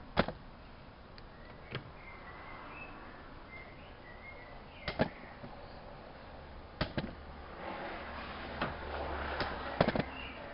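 Whirlpool AWO 5346 washing machine working through a cycle: a string of sharp knocks and clunks one to two seconds apart, with a low motor hum and a rushing swish from about seven seconds in, as the drum turns.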